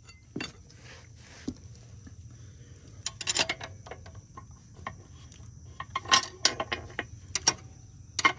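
Scattered metallic clinks, taps and scrapes as a stainless aftermarket exhaust muffler is worked into place against its mount on a Can-Am Ryker 900. The clinks come in short clusters about three seconds in, around six to seven seconds, and again near the end.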